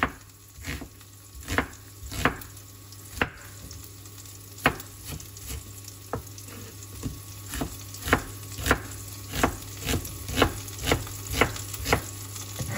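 Cleaver chopping an onion on a plastic cutting board: sharp knocks of the blade on the board, spaced out at first, then coming steadily about twice a second from about seven seconds in. Oil sizzles in a pan behind, frying garlic and shallots.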